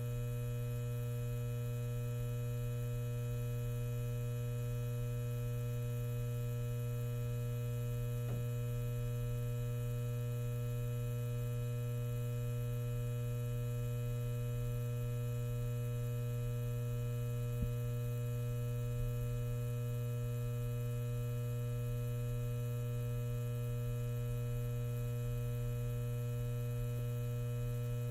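Steady electrical hum and buzz of a neon sign, with a faint click twice along the way.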